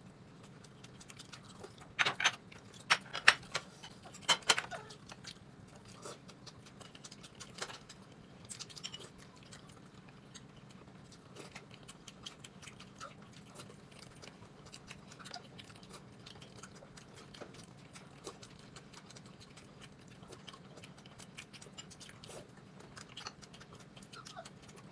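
Light clicks and knocks of tableware being handled at a meal, chopsticks against bowls. A cluster of louder knocks comes a couple of seconds in, then sparse faint clicks over a low steady hum.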